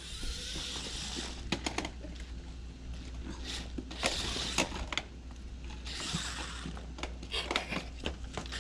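Small electric motor and gears of a toy remote-control stunt car whirring in repeated spurts as it is driven, with scattered clicks and knocks.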